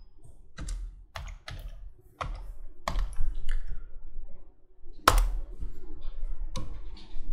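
Computer keyboard keystrokes: a handful of separate key clicks, then one louder stroke about five seconds in as the Enter key is pressed to run a command.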